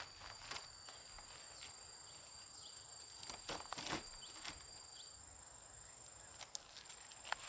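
Insects singing in steady high-pitched tones, one of which stops about two-thirds of the way through, with a few soft crackles and rustles in between.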